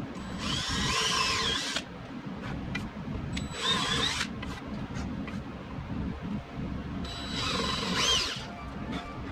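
Cordless drill boring locating pinholes into a wood blank, in three separate bursts whose motor whine rises and falls in pitch as the trigger is squeezed and let off. Background music runs underneath.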